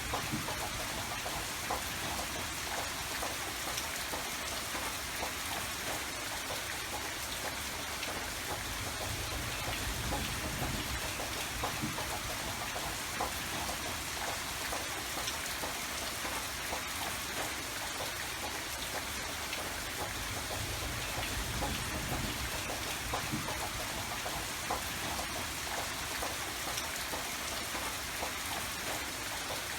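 Steady rain falling, with many small drops pattering on a surface and a faint low rumble.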